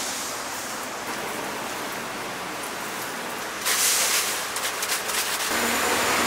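Hot oil in a deep fryer sizzling around a batch of twisted doughnuts. A steady, quieter hiss gets louder and brighter a little over halfway through.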